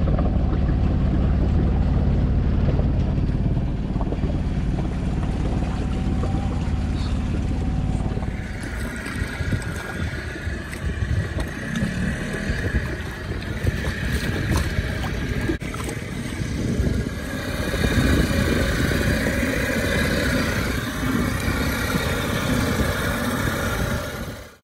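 A small boat under way: a low, steady engine hum with wind on the microphone for the first eight seconds or so, then a small outboard motor running with water splashing and wind gusts.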